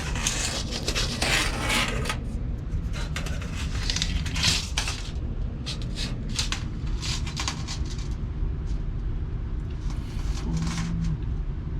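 Steady low mechanical hum, with scattered light metallic clinks, rattles and scrapes of a tape measure being handled during measuring.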